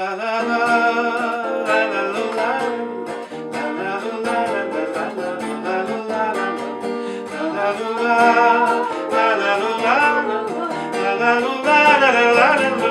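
Acoustic guitar strummed as accompaniment to singing of a bard song.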